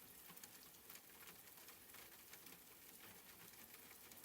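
Faint steady rain, with many small drops pattering.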